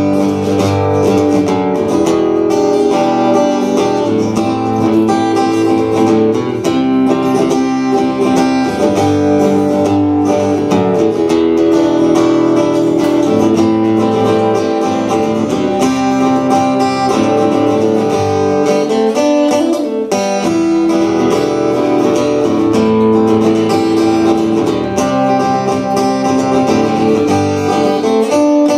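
Solo acoustic guitar playing the chords of a song's opening, the chord changing every second or two.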